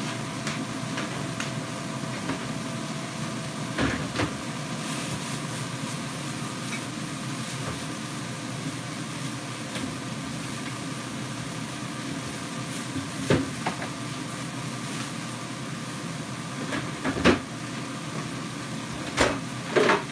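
Ground sausage sizzling in a skillet, over a steady fan-like hum, with a few scattered knocks.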